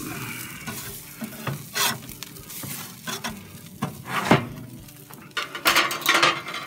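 Metal spatula scraping and knocking on a grill grate while digging out a burger patty that fell through, in irregular scrapes and clanks, the loudest about four seconds in and a quick run of them near the end.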